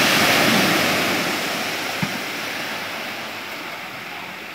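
Ocean surf: a wave breaking and rushing up the beach, its wash fading steadily away. A single brief tap about two seconds in.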